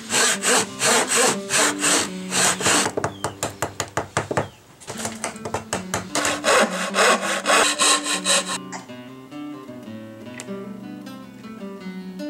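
Quick back-and-forth strokes of a fine-toothed 10-inch hand saw cutting into pine, about two to three strokes a second, pausing briefly halfway through and stopping about three-quarters of the way in. Background guitar music plays underneath and carries on alone after the sawing stops.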